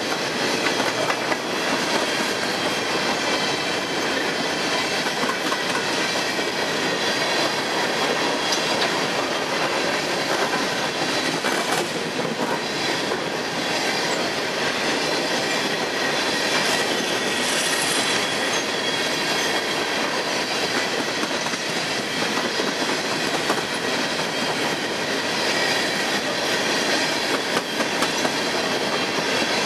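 Empty coal hopper cars rolling past on steel wheels: a steady rumble and rattle of wheels on rail, with clicks over the rail joints and a faint wheel squeal.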